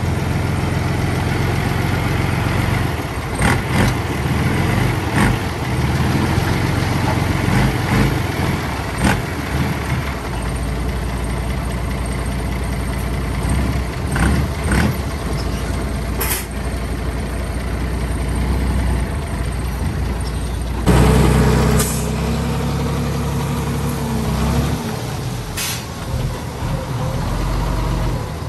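Diesel dump trucks running while their raised beds tip soil and rocks, with stones knocking and clattering as the load slides off. About 21 seconds in comes a sudden loud hiss with a steady whine under it, lasting a few seconds.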